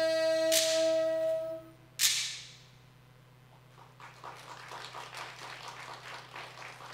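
A Korean court ensemble's held wind-instrument note is cut off by sharp wooden cracks of the bak clapper, struck to close the piece, the last one ringing out about two seconds in. After a short hush, audience applause begins.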